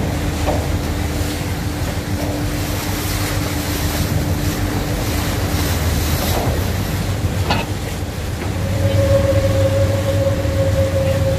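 Pilot boat's diesel engines running steadily while it holds alongside a moving ship's hull, with water rushing between the hulls. About eight or nine seconds in the engine note changes to a higher hum and grows louder.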